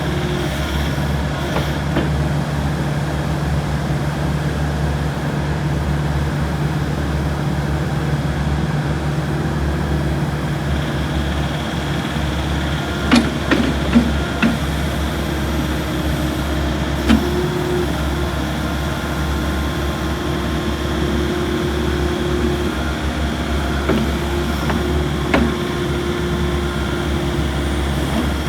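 Volvo ECR88D compact excavator's diesel engine running steadily, with a few sharp knocks: several close together about halfway through and two more near the end.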